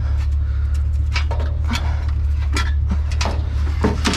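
Scattered clinks, knocks and scrapes of scrap metal being shifted and hooked into place on a loaded truck, more frequent in the second half, over a steady low hum.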